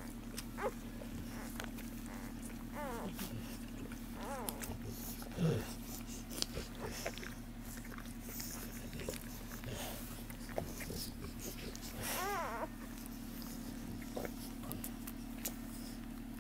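Newborn Bullmastiff puppies squealing, a few short cries that rise and fall in pitch, over a steady low hum and scattered soft clicks. The loudest moment is a brief low sound about five seconds in.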